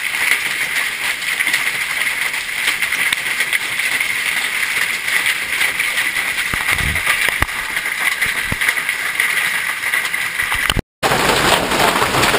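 Hail and rain pelting down, a steady hiss scattered with many small sharp impacts. A brief break about eleven seconds in, after which the downpour sounds louder.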